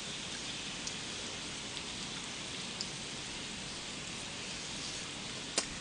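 Pork belly, pork neck and marinated meats sizzling on a large griddle: a steady hiss with a few small pops, and one sharper click near the end.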